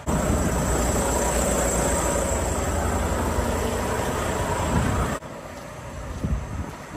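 Semi truck's diesel engine running close by: a steady low rumble with a faint high whine, which cuts off abruptly about five seconds in and leaves quieter, uneven outdoor noise.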